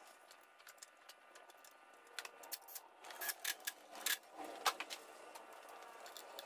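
Scattered light clicks and taps of small plastic and metal parts, bunched between about two and five seconds in, as ignition coil packs are fitted onto an engine's valve cover.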